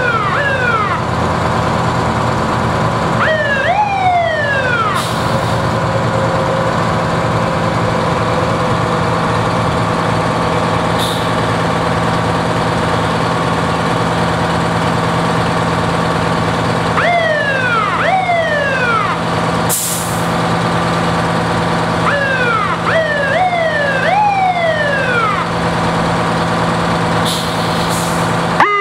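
Idling fire truck engines make a steady hum while a siren is blipped in short whoops that rise and fall, in clusters of two to five, several times over. A few brief air hisses, the sound of air brakes, cut in now and then.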